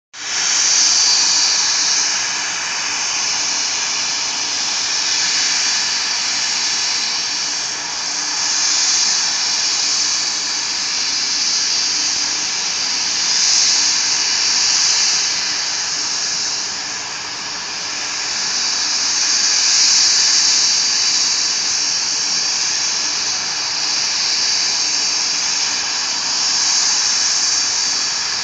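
SkyWest CRJ200's two rear-mounted GE CF34 turbofans whining at low thrust as the jet taxis in: a steady high-pitched hissing whine that swells and eases every few seconds.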